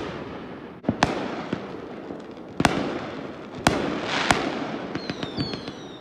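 Fireworks going off: four sharp bangs, about a second apart, each trailed by a crackling hiss. Near the end a high whistle falls slightly in pitch.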